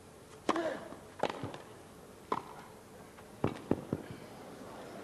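Tennis rackets striking the ball in a grass-court point: a serve about half a second in, a return, then a quick flurry of three hits near the net between about three and a half and four seconds in. Each hit is a single sharp pock against a quiet crowd.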